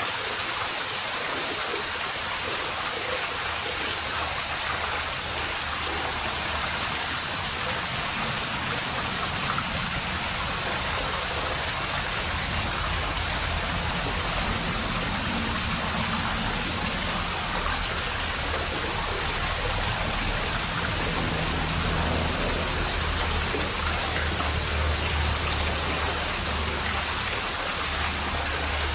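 Water spilling steadily over a carved-rock pool waterfall into the pool, a constant even rush. A low hum sits underneath and grows stronger about halfway through.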